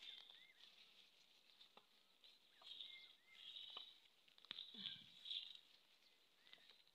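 Near silence: faint rustling and scraping of leaves and soil as hands work among crop plants, with a few faint high chirps.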